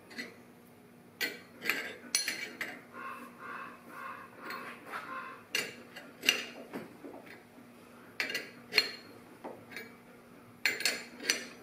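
Sharp metal clicks and clinks in bunches a few seconds apart, with a quicker run of softer clicks in the middle, from a gear puller being worked to draw a gear and bearing off an NSG370 transmission mainshaft.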